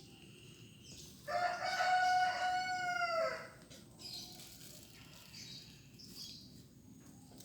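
A rooster crowing once: a single drawn-out call of about two seconds, held steady and then dropping in pitch at the end.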